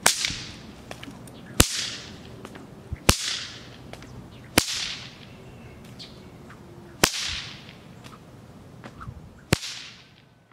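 A whip cracking six times, each a sharp crack with a short fading tail, spaced roughly one and a half to two and a half seconds apart.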